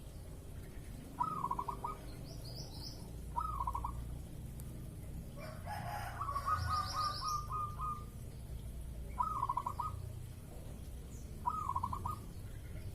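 Zebra dove (perkutut) cooing its song: short clusters of quick staccato notes repeated about every two seconds, with a longer run of notes about six seconds in. Brief higher-pitched chirps from a smaller bird come twice.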